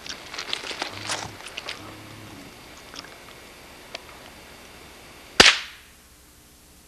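A single shotgun shot about five seconds in, a sharp crack with a short echoing tail. A couple of faint clicks come before it.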